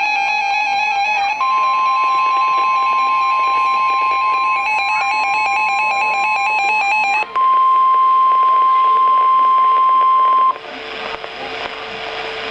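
Emergency Alert System attention signal for a severe thunderstorm warning: a single steady high-pitched alert tone holds from about a second and a half in, breaks briefly about seven seconds in, and cuts off suddenly about ten and a half seconds in. Through the first seven seconds a regularly stepping pattern of electronic tones plays under it, and after the tone stops a faint steady hum and hiss remain.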